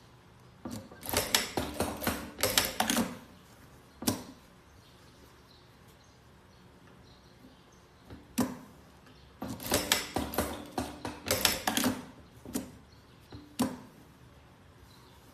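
Industrial single-needle sewing machine stitching denim in short spurts: two runs of rapid stitching, about a second in and about ten seconds in, each made of several quick bursts, with single short clacks in between.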